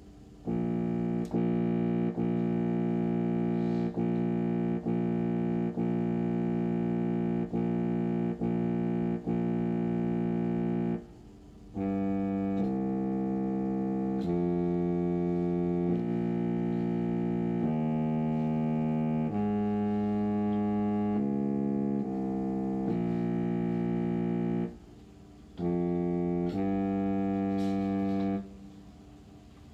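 Low brass instruments playing a concert band part: one note repeated about every three-quarters of a second for ten seconds, then after a short break a moving line of longer notes, another brief pause, and a closing phrase.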